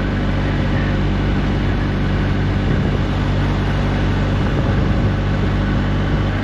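BMW R1250GS Adventure's boxer-twin engine running at a steady cruising speed, with a constant rush of wind and road noise.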